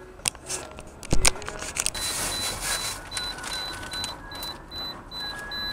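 Car cabin sounds: a few sharp clicks and a low thump, then steady cabin noise with a faint high-pitched beep repeating about four times a second.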